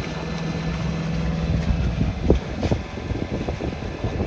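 A sailboat's engine running steadily under motor, a low rumble with a couple of dull knocks a little past halfway.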